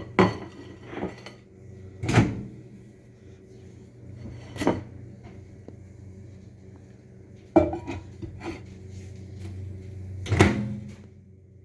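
Kitchen doors and dishes being handled: five sharp knocks and clacks a few seconds apart, over a steady low hum.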